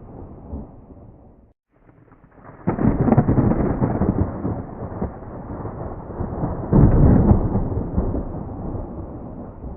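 Thunder: a rumble fades out, briefly stops about a second and a half in, then two loud peals of thunder break sharply about 3 and 7 seconds in, each rolling and slowly dying away.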